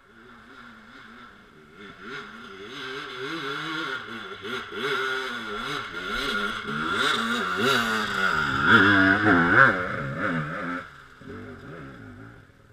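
Off-road dirt bike riding up a leafy trail toward and past, its engine revving up and down with constant throttle changes. It grows louder to a peak about nine to ten seconds in, then drops away sharply.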